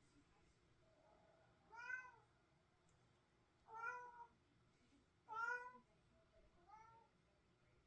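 A cat meowing four times, each call rising and then falling in pitch, about one and a half seconds apart; the last meow is fainter.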